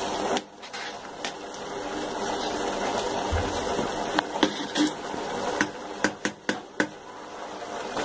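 Rice and masala bubbling at a boil in a large metal pot of biryani, while a perforated ladle stirs it; several sharp clicks of the ladle against the pot come in the second half.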